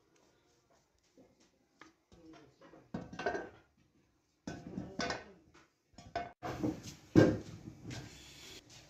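Irregular clattering and knocking of metal parts, starting about three seconds in after faint ticks, with the loudest knock about seven seconds in.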